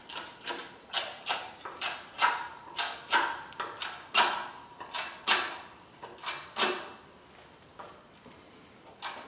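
Hand-pumped hydraulic shop press working: a regular series of sharp clicking pump strokes, about two a second, that stops about seven seconds in. The ram is crushing roll cage tubing beside a weld to test the weld.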